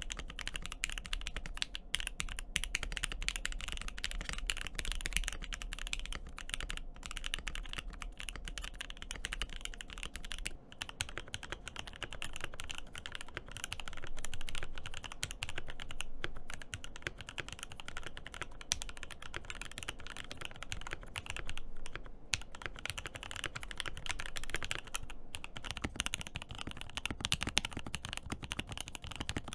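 Mechanical keyboard being typed on steadily and fast, a dense run of key clicks and clacks with no pauses.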